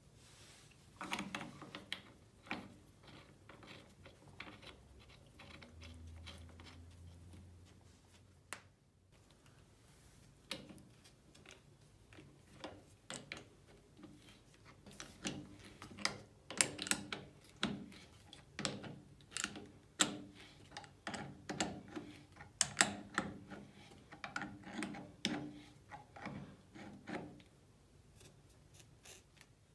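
Steel adjustable wrench clinking and scraping on a brass tap spindle as it is handled and fitted, a run of irregular sharp metal clicks, thickest in the second half.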